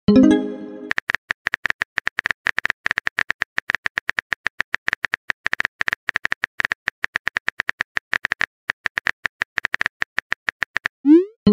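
Chat-app sound effects: a short chime as a message pops in, then a long run of rapid keyboard-typing clicks, several a second. Near the end comes a quick rising swoop into the next message chime.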